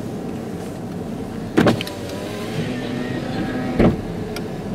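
Steady noise inside a stopped car's cabin, with two short, sharp knocks about two seconds apart.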